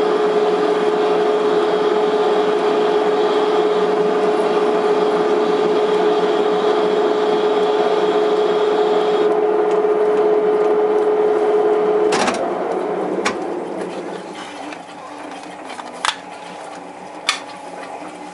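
Metal lathe running with a steady hum while a form tool cuts the belt groove in a new pulley; the higher hiss of the cut drops out about nine seconds in. About twelve seconds in the lathe is switched off and runs down, with a few sharp clicks as it stops.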